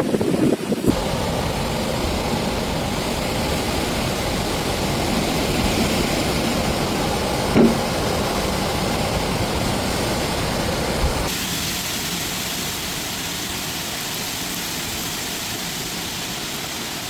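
Steady hiss of heavy rain in a thunderstorm, with a short knock about seven and a half seconds in. About eleven seconds in it cuts to a thinner hiss with less low rumble.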